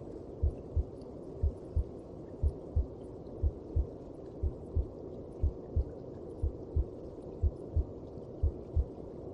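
A mother's heartbeat as heard from inside the womb: a low, muffled double thump (lub-dub) about once a second, nine beats in all, over a steady low hum.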